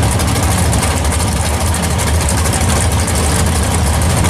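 Two muscle-car drag racers' engines idling loudly and steadily at the starting line as the cars creep forward to stage.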